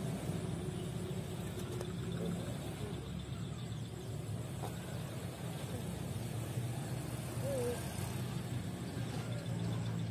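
A steady low engine hum from a distant motor, with faint voices.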